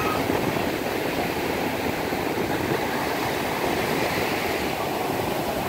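Ocean surf breaking and washing over the shallows, a steady rushing noise.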